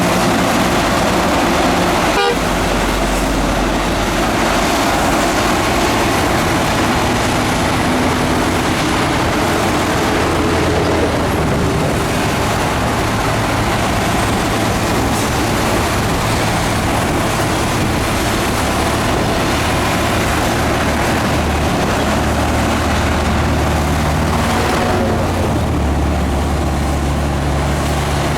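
Heavy diesel engine of earthmoving equipment running steadily under load, its low drone shifting in pitch as it works, with a sharp knock about two seconds in.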